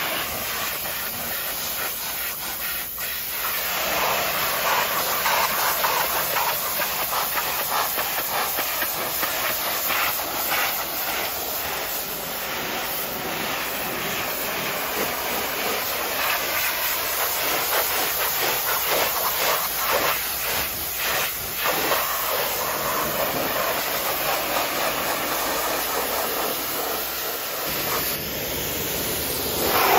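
High-pressure washer jet spraying water onto a mud-caked car's doors, windows and hood, a steady hiss that shifts and flickers as the jet sweeps across the panels.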